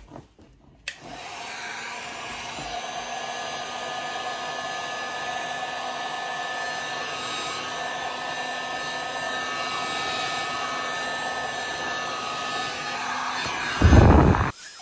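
Electric heat gun switched on with a click about a second in, then running steadily with a blowing rush and a fan whine. Near the end there is a brief, loud, low rush of air as the nozzle swings toward the microphone.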